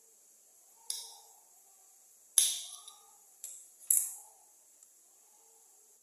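Knife cutting garlic cloves into small pieces: four sharp cuts at uneven intervals, the loudest about two and a half seconds in.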